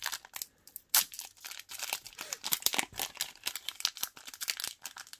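A foil trading-card booster pack crinkling and tearing as it is pulled open by hand, a dense run of crackles with a sharper crack about a second in.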